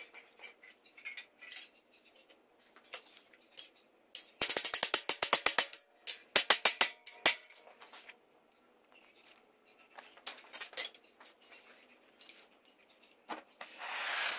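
Sharp metallic taps and clinks of steel gate parts and a rivet being set on an anvil: two quick runs of rapid, evenly spaced taps about four and six seconds in, then scattered single clinks. A steady hiss begins near the end as a gas torch comes on to heat the rivet.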